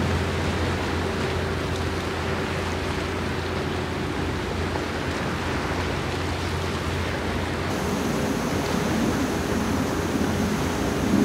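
Steady rushing noise of wind and sea at the shoreline, with a low steady hum underneath. It grows a little rougher in the last few seconds.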